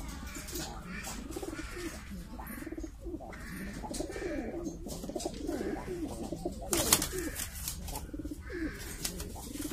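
Mukhi fancy pigeons cooing in a wire cage, a continuous run of low, rolling coos that rise and fall in pitch. A sharp click cuts in about seven seconds in.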